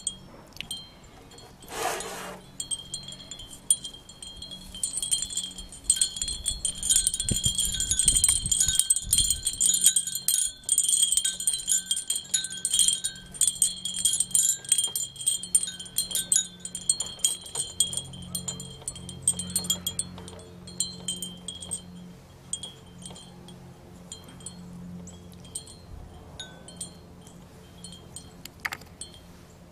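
Metal wind chimes tinkling irregularly, each strike ringing on at a few fixed high pitches, busiest in the first half. A low steady drone sits underneath in the second half.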